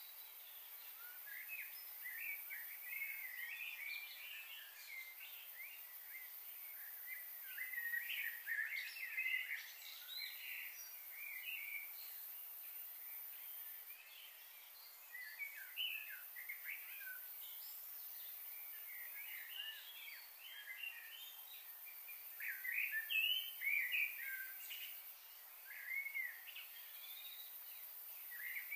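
Birds chirping and calling in quick overlapping flurries, busiest about a third of the way in and again past two-thirds, over a faint steady high hiss.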